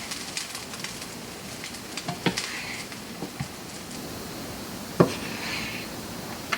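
Kitchen utensils clinking and knocking against a pan and bowl as fried rice is scooped out to serve, a few separate knocks with the loudest about five seconds in, over a steady hiss.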